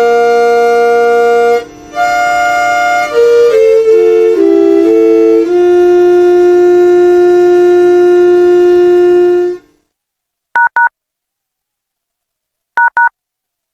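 Municipal FM announcement-broadcast chime: an electronic melody of clean, wind-like held notes, ending on a long held note about nine and a half seconds in. After a pause come two short two-tone beeps a couple of seconds apart, the second a quick pair.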